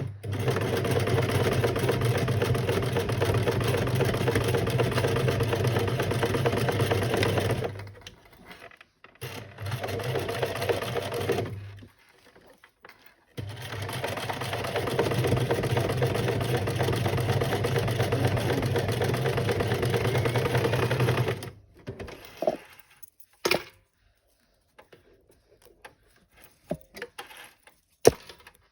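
Electric sewing machine stitching in three runs, the longest about eight seconds, with short pauses between. After that come a few light clicks and knocks of the machine and fabric being handled.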